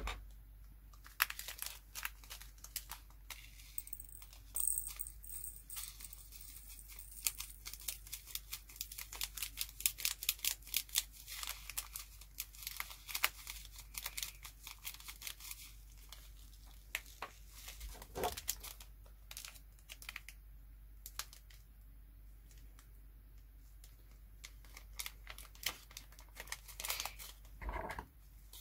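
Small plastic bag of diamond-painting resin drills crinkling and rustling as it is handled, with quick patters of small clicks as drills are poured into a round plastic pot. The noise comes in spells and eases off for a few seconds past the middle.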